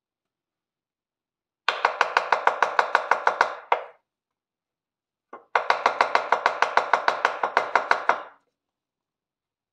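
A kitchen knife chopping fast through mushrooms onto a wooden cutting board, each stroke a sharp knock on the board. It comes in two quick runs of about eight or nine strokes a second, the first starting nearly two seconds in, with a pause in the middle.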